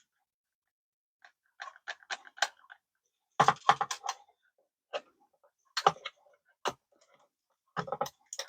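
Irregular clusters of short, sharp clicks and knocks as hands work a Sunlu filament connector, a heated plastic splicer: the clamp is clipped and opened and the filament is shifted in it.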